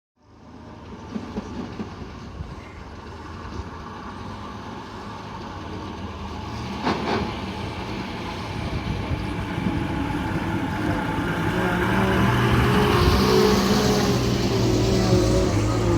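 A bus's diesel engine running and growing steadily louder as it draws near, its low engine note coming through more strongly in the second half. There is one sharp click about seven seconds in.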